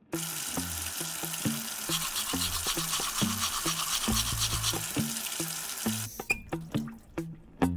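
A brushing sound that starts abruptly and settles into quick, rhythmic strokes about two seconds in, then stops about six seconds in. Background music with a plucked bass line continues underneath.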